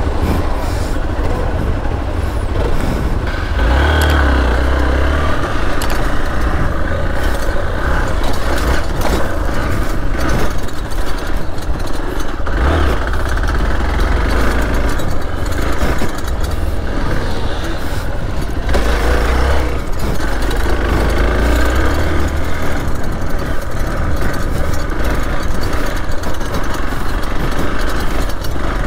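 Hero XPulse 200 4V dirt bike's single-cylinder 200 cc engine running, revving up and easing off several times.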